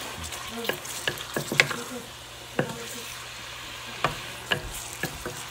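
Food sizzling in a frying pan while a wooden spatula stirs it: a steady frying hiss broken by irregular knocks and scrapes of the spatula against the pan.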